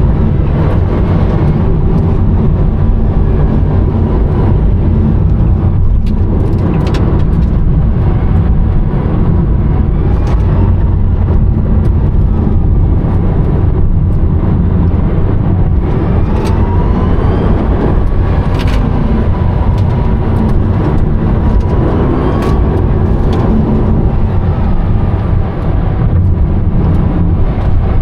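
Loud road and wind rumble inside the cabin of a Rimac Nevera, the four-motor electric hypercar, at speed. A few times a faint electric motor whine rises in pitch as the car accelerates.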